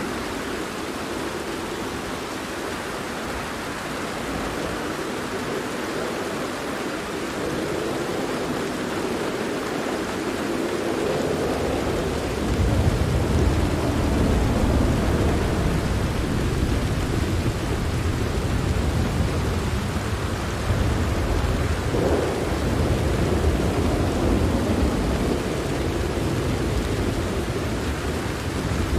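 Steady rain with rolling thunder: a low rumble of thunder swells in about twelve seconds in and goes on rolling under the rain.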